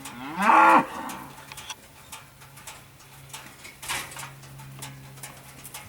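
A single short animal call, about half a second long just after the start, its pitch rising, holding and then falling. A steady low hum runs underneath, with faint scattered clicks.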